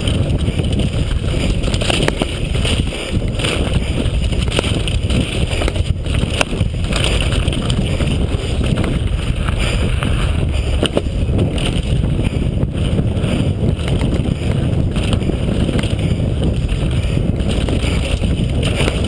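A downhill mountain bike descending fast over rough dirt and rock: steady wind rush over the helmet-camera microphone, with tyre noise on loose ground and frequent clattering knocks from the bike.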